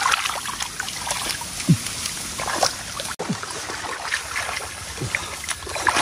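Shallow water splashing and trickling in irregular bursts as it is stirred by hand.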